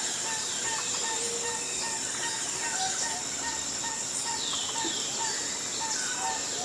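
Forest ambience: birds calling, one repeating a short low note about twice a second while others give falling whistles, over a steady high-pitched insect drone.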